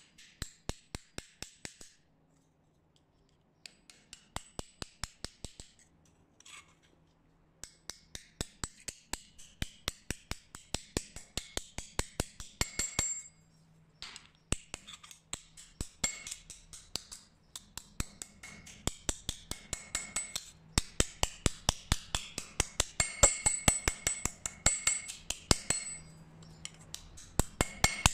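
Small metal hammer striking a red-brass tube on a steel anvil horn. It comes in quick runs of light ringing metallic taps, about five a second, with short pauses between runs, and the taps grow louder near the end. This is the split tube being hammered open and flattened into sheet.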